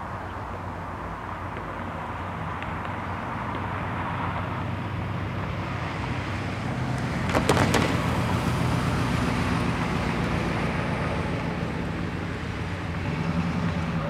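A car drives past, getting louder to a peak about seven and a half seconds in, with a quick cluster of sharp clicks at its loudest, over a steady low hum.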